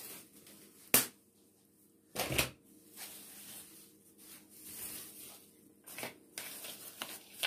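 A sharp knock about a second in and a short thump, then a thin plastic bag rustling and crinkling as it is pulled over a plastic bowl of dough near the end.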